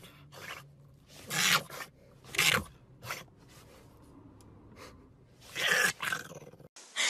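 A French bulldog puppy blowing several short, breathy puffs of air through its nose and mouth, four in all, spaced unevenly.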